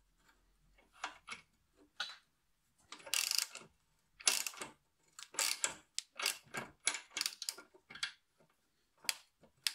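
Socket ratchet clicking in short bursts as it runs down the bolt of a homemade stud-bolt extractor, the strokes coming faster in the second half.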